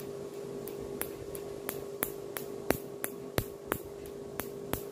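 Tattoo-removal laser pulses snapping on the skin, a sharp click about three times a second as each pulse is fired at the tattoo ink, over a steady hum.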